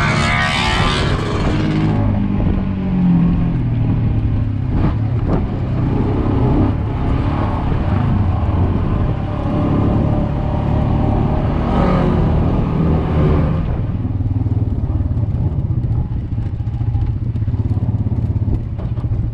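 Honda Pioneer 500 side-by-side's single-cylinder engine running as it drives on a gravel trail, with tyre and gravel noise. An oncoming dirt bike passes close by in the first couple of seconds. The machine slows in the last few seconds.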